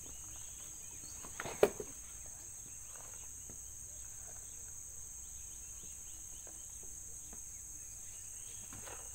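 Insects chirring steadily in a high-pitched drone, with one sharp click about a second and a half in and a few faint ticks.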